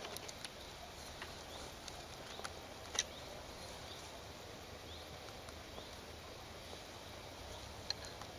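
Faint rural evening ambience: a steady hiss with scattered short bird chirps, the sharpest about three seconds in and another near the end.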